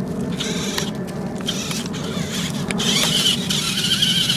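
Toy RC rock-crawler truck's small electric motor and plastic gears whining as the truck strains, stuck in dry leaves. A steady higher whine sets in about three seconds in.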